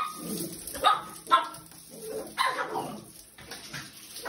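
Cavapoo puppy barking excitedly at the shower spray, several short yipping barks.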